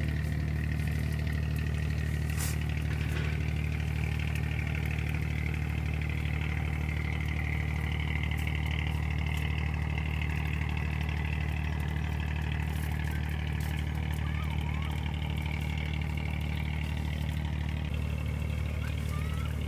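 Low, steady drone of a boat's engine running at a constant speed, with a few short rising chirps near the end.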